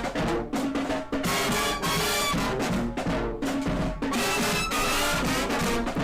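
Brass-led music with drums, playing steadily.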